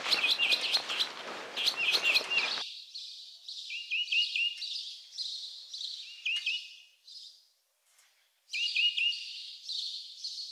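Footsteps crunching through dry fallen leaves on a forest path, with small songbirds chirping. The footsteps stop suddenly about two and a half seconds in. After that only the birds go on, in several bursts of short, quick, high chirps.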